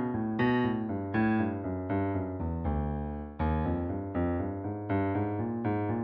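Piano plays the guide pattern for a fast riffs-and-runs vocal exercise for low voice: quick runs of notes stepping up and down over low bass chords. A low chord is held for about a second near the middle before the run starts again.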